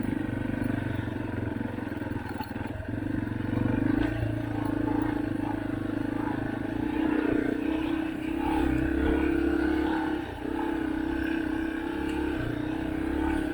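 Yamaha dirt bike engine running steadily under throttle while riding through packed snow. The engine note holds a fairly even pitch with repeated small surges and dips in loudness, and briefly drops off about ten seconds in.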